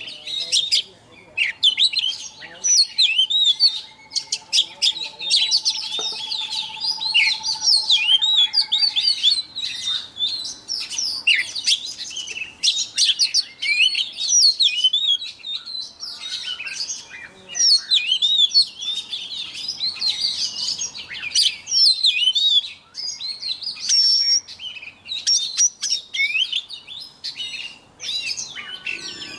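Oriental magpie-robin singing a long, varied run of quick whistles, trills and sharp chirps with only brief pauses. A faint steady tone sounds beneath the song for the first several seconds.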